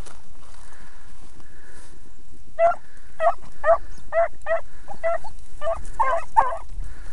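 Beagles baying while trailing a rabbit: a run of about ten short barks, two to three a second, starting a couple of seconds in.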